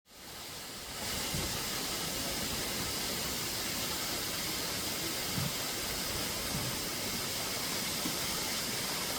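Waterfall: a steady, even rush of falling water that fades in over the first second.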